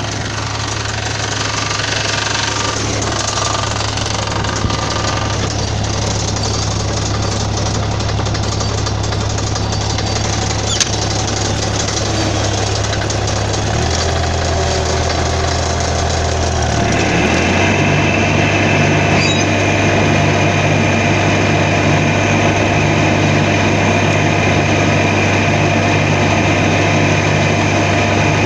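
John Deere 997 zero-turn mower's diesel engine running steadily as the mower drives. About fourteen seconds in the engine note drops for a few seconds, then rises again and runs a little louder, with a higher whine joining in.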